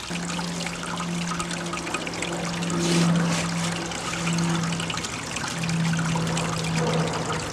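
Water from a hose running steadily down an aluminium gold sluice box, with a steady low hum underneath.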